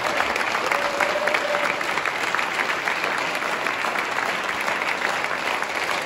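Audience applauding steadily, a dense, even mass of hand claps.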